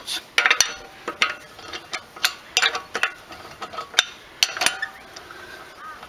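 Irregular metallic clicks and clinks as a wheel brace is worked on a car's loosened wheel nuts, undoing them off an alloy wheel.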